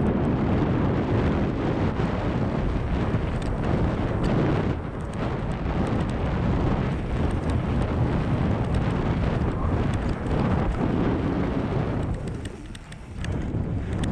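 Wind rushing over the microphone and mountain-bike tyres rolling fast over a dirt trail, with frequent small clicks and rattles; the noise drops briefly about twelve seconds in.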